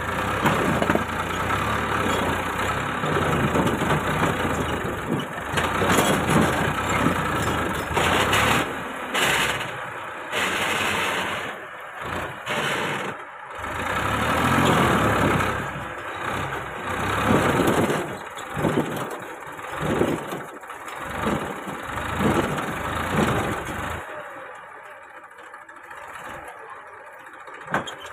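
Massey Ferguson 1035 DI tractor's three-cylinder diesel engine revving hard in repeated surges under heavy load as the stuck tractor and its trolley are driven to get out, dropping back to a steady idle about four seconds before the end.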